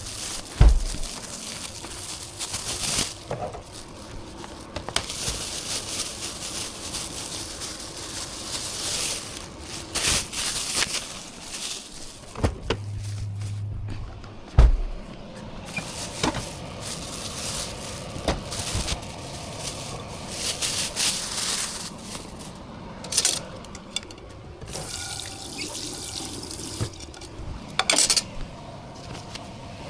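Kitchen tap running into a sink in several separate bursts, each a second or a few seconds long, with knocks and clatter between them. A short low hum comes in about halfway through.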